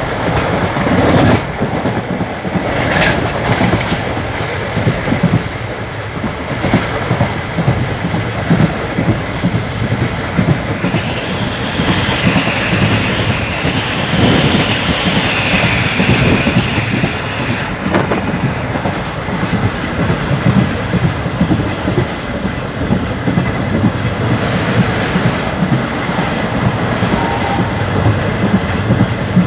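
Quilon Express passenger coaches running at about 100 km/h through a station without stopping: a continuous rumble with the wheels clattering rapidly over rail joints and points. A higher-pitched rushing noise rises over the clatter from about 11 to 17 seconds in.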